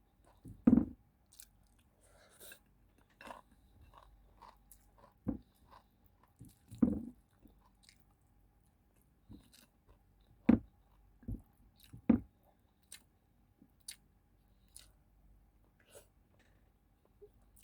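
Close-miked eating: chewing with crunching and small mouth clicks, broken by a few louder thumps, the loudest about a second in and again about ten seconds in.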